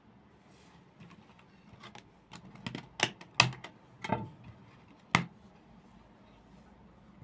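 Hands handling glossy photo cards and a CD package, making a run of sharp clicks and taps. The loudest come around three to four seconds in, and a last single click comes a little after five seconds.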